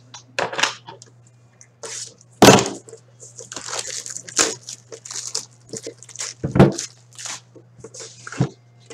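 Plastic shrink-wrap crinkling and tearing as it is stripped off a 2015-16 Upper Deck Series 1 hockey card box, in irregular crackly bursts. Two loud knocks come from the box being handled, about two and a half seconds in and again near seven seconds.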